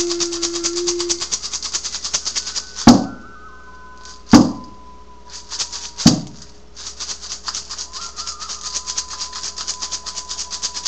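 A hand rattle shaken fast and steadily. It breaks off for three loud frame-drum strikes, each about a second and a half apart, then the shaking starts again under a faint steady high tone. A low held tone dies away in the first second.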